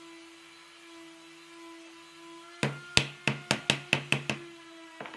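About eight sharp wooden knocks in quick succession over a second and a half, driving a slatted solid-wood frame down into the groove of its wooden base until it is seated, with one lighter knock after.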